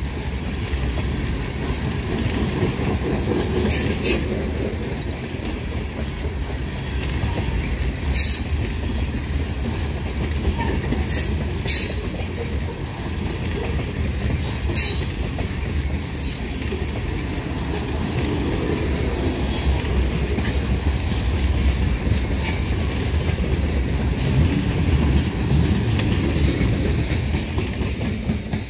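Covered hopper cars of a potash freight train rolling past: a steady rumble and clatter of steel wheels on rail, with scattered sharp clicks. The sound drops off near the end as the last car clears.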